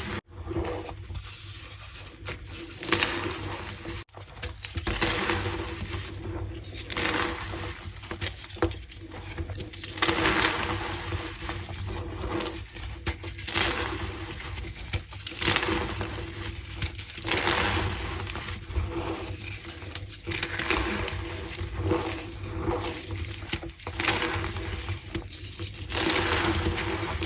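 Reformed gym chalk being crushed and crumbled by hand, a squeaky crunching that comes in repeated swells every second or two.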